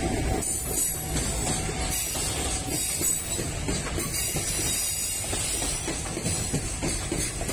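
Freight train of loaded container wagons rolling past at low speed, its wheels rumbling and clattering over the rails.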